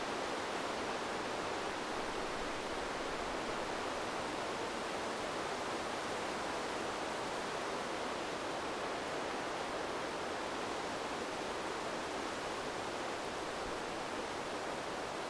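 River water flowing, a steady even rush of moving water.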